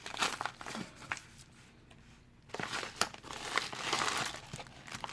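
Packaging being handled and unwrapped, crinkling with scattered small clicks; it goes quieter for about a second, then a denser stretch of crinkling follows.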